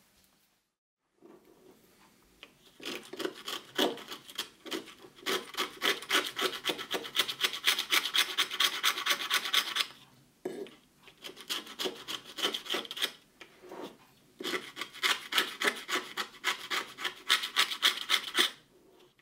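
Rapid scraping strokes as the perished foam surround and its old glue are scraped off the edge of a speaker cone and frame. The scraping comes in three spells separated by short pauses.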